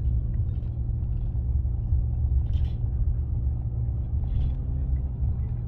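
Jeep TJ Wrangler driving on the road, heard from inside the cabin: a steady low rumble of engine and tyres.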